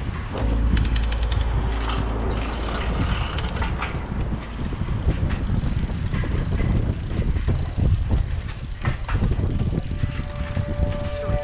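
Bicycle ride heard from a handlebar-mounted camera: steady road rumble and air noise, with scattered clicks and rattles from the bike. Music comes in near the end.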